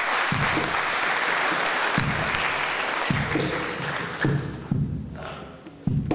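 Audience applauding, the clapping fading near the end, while a cajón starts a slow beat of deep bass strikes about once a second underneath.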